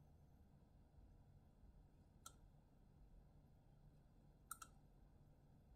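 Faint computer mouse clicks against near-silent room tone: a single click about two seconds in and a quick pair of clicks later on.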